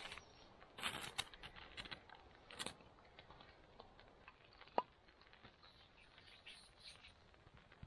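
Ferro rod scraped against a knife spine: a few sharp, hissing scrapes in the first three seconds as sparks land on tinder under a stack of split kindling. After that come faint small ticks as the tinder catches, and a brief squeak about five seconds in.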